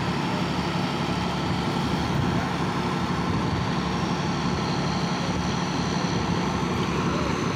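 Engine of a crawler-mounted railway turnout-laying machine running with a steady, even drone as the machine slowly shifts a lifted points assembly on its sleepers.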